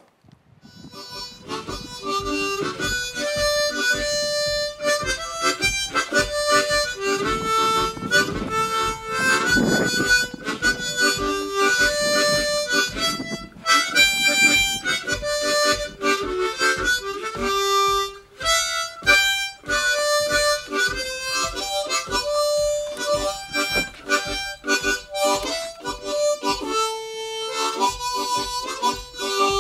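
Background music: a harmonica playing a tune with held and bending notes over a steady beat.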